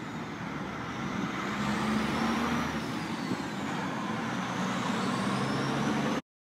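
Street traffic with a heavy vehicle's engine running steadily and a faint high whine rising and falling; the sound cuts off suddenly near the end.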